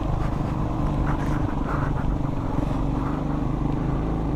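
Motorcycle engine running steadily at a constant speed.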